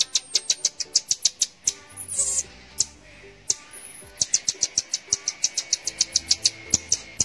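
Baby marmoset giving rapid, high-pitched chirping calls, about eight a second, with a pause of a couple of seconds in the middle, over background music.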